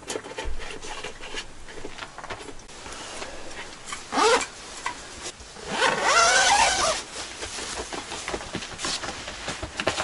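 Nylon bags and bedding rustling as a backpack is packed, with a zipper pulled about 4 s in and again, louder and longer, at around 6 to 7 seconds.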